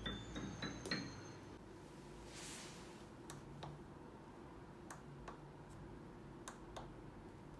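The last notes of a rising run on a Korg SP-250 digital piano die away in the first second or so. After that come faint, scattered clicks as its front-panel function buttons are pressed one at a time.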